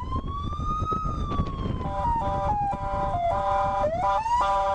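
A warning siren winds up to a high pitch and slowly falls away, then sounds as a chord of several steady tones that shift in steps, over a low rumble.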